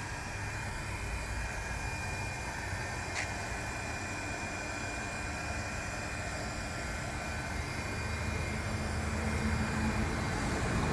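Electric heat gun running steadily, its fan blowing with a thin high whine, warming the adhesive tape on the back of a car weathershield. It gets a little louder near the end.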